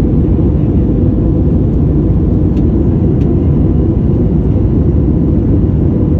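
Cabin noise of an Airbus A320-family twin-jet airliner in flight, heard from a window seat: the jet engines and the rush of air over the fuselage make a steady low roar that does not change.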